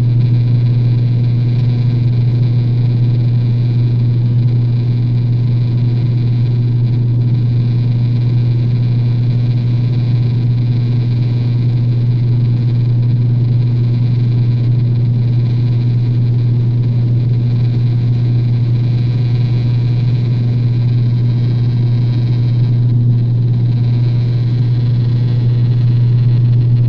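Turboprop airliner heard from inside the cabin in flight: the propellers' steady low drone, one deep tone with a fainter overtone, over a constant rush of engine and air noise.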